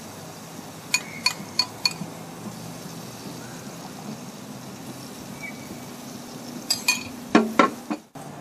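A spoon tapped four times in quick succession against a bowl to knock off the sauce, with a short ringing clink each time. Near the end a few louder clanks and knocks as the gas grill's metal lid is lowered shut.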